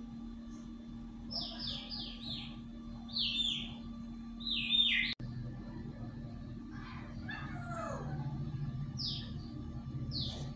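Pet bird chirping: a quick run of short, sharp calls that fall in pitch, a few more single ones, and some lower calls near the end, over a steady low hum.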